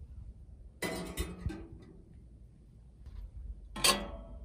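Two sharp metallic clinks about three seconds apart, metal parts being handled or set down, the second louder and ringing on briefly.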